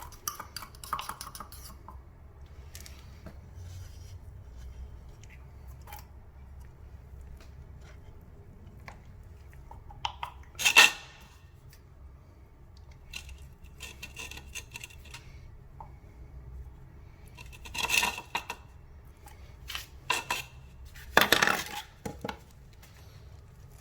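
Shower drain parts and a glue can being handled while the drain is glued on: scattered light clinks and a few sharper knocks, the loudest about halfway through, over a low steady hum.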